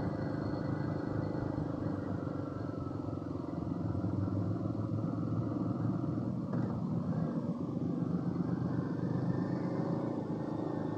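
Motorbike engine running steadily as it rides along, with road and wind noise.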